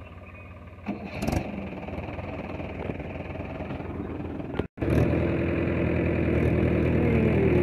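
Diesel tractor engine running steadily, with a few knocks about a second in. Nearly five seconds in the sound cuts out for a moment, then the Mahindra Yuvo tractor's engine runs louder and closer while the tractor is bogged in mud.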